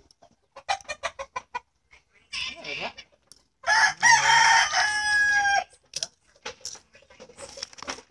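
A rooster crows once, starting a little under four seconds in and lasting about two seconds, its final note held level. Short clucking sounds come before it.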